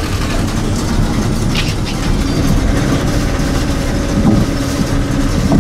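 Small passenger boat's engine running, a steady low rumble with a constant hum, heard from inside the boat's covered cabin.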